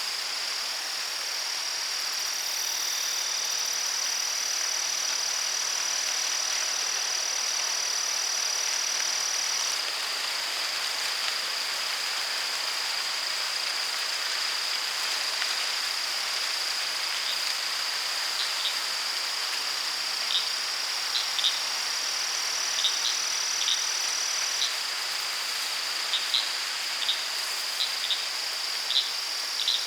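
Late-summer forest ambience: a steady, continuous high-pitched drone of crickets and other insects over a soft hiss. Short high chirps come in irregularly over the last dozen seconds.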